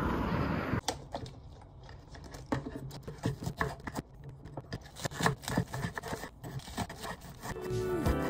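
Ceramic kitchen knife slicing green onions on a wooden cutting board: a run of irregular crisp chops, each stroke a short click as the blade cuts through the stalks and taps the board.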